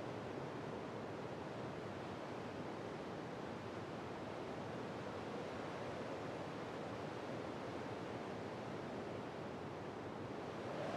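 Steady outdoor rushing noise of wind, with no engine running.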